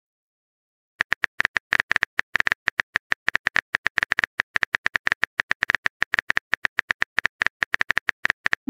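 Simulated phone-keyboard typing clicks from a texting-story app, one per letter as a message is typed: short, sharp taps at about six or seven a second, starting about a second in.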